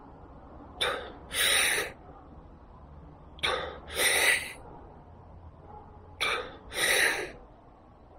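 A man doing freediver's recovery breathing: three cycles, each a brief passive exhalation followed by a longer, forceful intake of breath, about every two and a half seconds.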